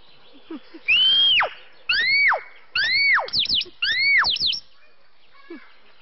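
Mynah bird giving four loud whistles, each swooping up and then gliding steeply down, with quick falling chirps tucked between the last three.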